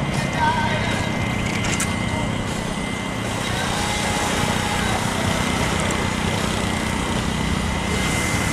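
A steady mechanical drone with a constant high-pitched whine over it.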